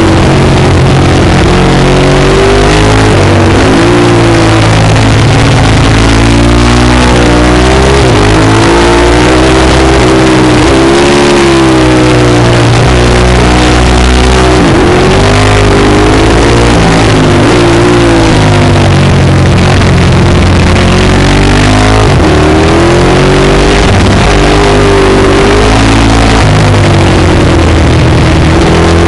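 Ducati 1098's V-twin engine heard loud from on board, its pitch repeatedly rising and falling as the bike is ridden hard through a run of bends, over heavy wind rush.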